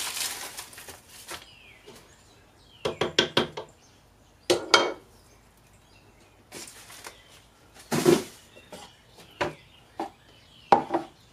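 Kitchen handling sounds as raw chicken tenderloins are laid into a slow cooker: a brief rustle of the plastic-wrapped meat tray at the start, then scattered knocks and taps on the crock and counter, with a quick run of about half a dozen around three seconds in.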